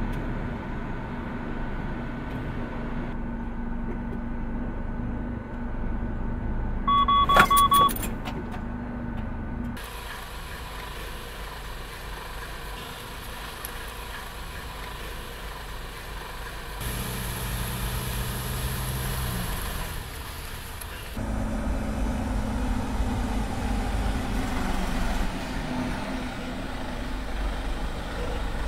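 Mercedes-Benz heavy truck running with a steady hum, which changes abruptly a few times. About seven seconds in there is a short electronic beep.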